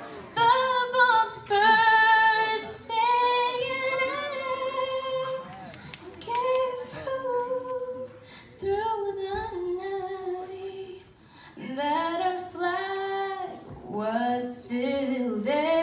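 A woman singing solo and unaccompanied, a slow melody with long held notes and short pauses between phrases.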